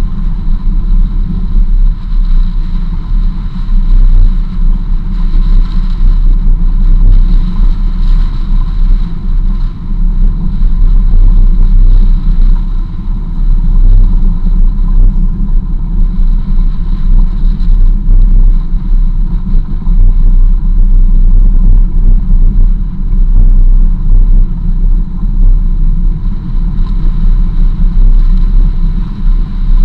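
Jeep driving along a dirt road, picked up by a camera mounted on its hood: a loud, steady low rumble of engine, tyres and wind, its loudness constantly fluttering.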